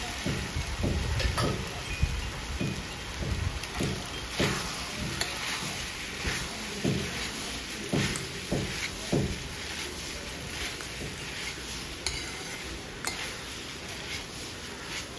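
Metal ladle stirring and tossing pasta in a steel wok, scraping and knocking against the pan about twice a second, over a steady frying sizzle. The stirring strokes thin out after about nine seconds, leaving mainly the sizzle and an odd clink.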